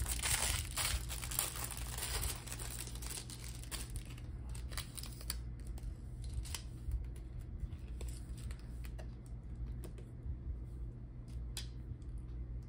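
Plastic LEGO parts bag crinkling as it is torn open and emptied for the first couple of seconds, then scattered light clicks of small LEGO bricks being picked up and snapped together.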